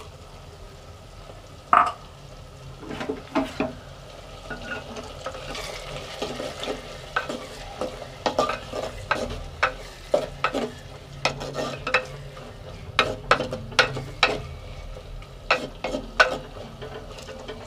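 A spoon stirring and scraping in an earthen clay pot as onion paste fries in hot oil. A steady sizzle runs under many short scrapes and knocks, which come thicker in the second half.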